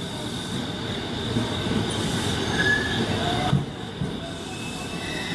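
JR East E217-series electric train rolling slowly into the platform, its wheels squealing over a steady running rumble, with a high thin tone held throughout.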